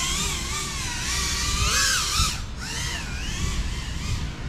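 Small FPV quadcopter's electric motors and propellers whining, the pitch rising and falling as the sticks are worked, with a brief drop a little past halfway.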